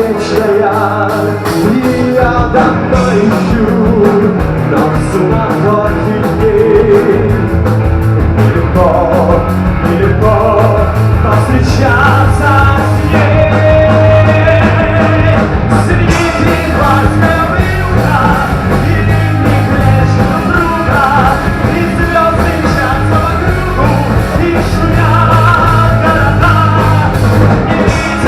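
Rock band playing an instrumental passage, with a strong bass line, drums and melodic lead lines and no sung words.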